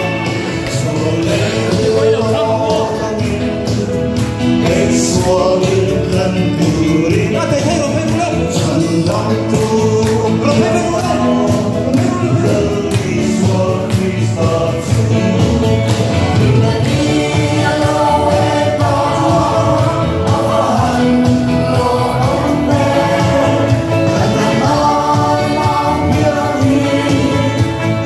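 A Christmas song in Mizo sung with instrumental accompaniment: a continuous melody carried by voice over a full, steady backing.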